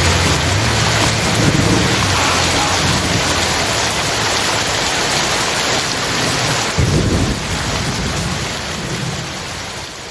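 Heavy rain hissing steadily with low rumbles of thunder, one swelling suddenly about seven seconds in, then the whole sound fades down near the end.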